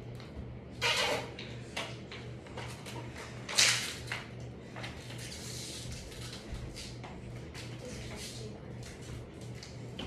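Ceiling fan running with a steady, evenly pulsing low hum. Two short loud noises come about one second and three and a half seconds in, with lighter clicks between them.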